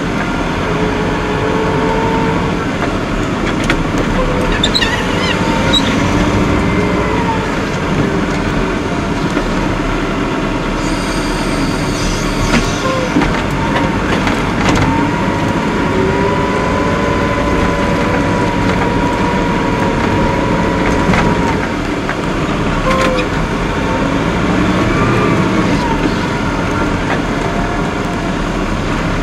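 Caterpillar IT28 wheel loader's diesel engine heard from inside the cab, its pitch rising and falling again and again as the machine revs and eases off while pushing snow with a front plow blade. A few short knocks come through along the way.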